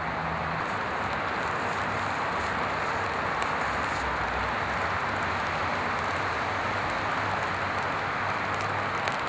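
Steady, even hiss of background noise with a faint low hum underneath and no distinct events.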